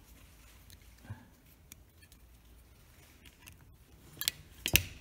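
Faint taps and small clicks of multimeter test probes being placed on the metal terminal studs of a motor's terminal block, ending with two sharper clicks about half a second apart.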